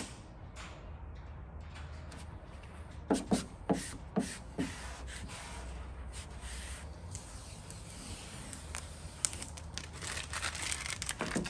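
Clear application tape being peeled off a freshly laid vinyl decal, with plastic-film crinkling: a few sharp crackles about three to four and a half seconds in, then a longer stretch of fine crinkling near the end.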